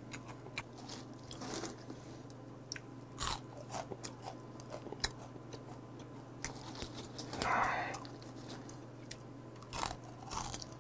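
Close-up chewing and crunching of dried pollack (meoktae) snacks, a string of short crisp bites and chews, with one louder half-second sound about seven and a half seconds in.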